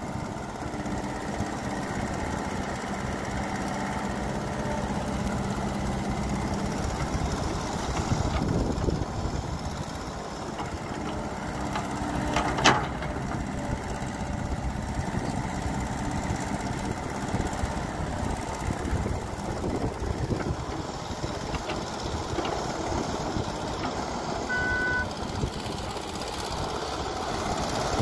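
Diesel engine of a Caterpillar E120B hydraulic excavator running steadily under load as it digs soil and loads a dump truck, with a single sharp clank about halfway through and a short beep near the end.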